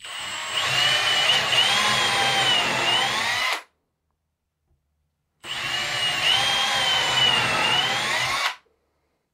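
Cordless drill boring two holes through a wooden block, two runs of about three seconds each with a short pause between. The motor's pitch wavers as the bit cuts.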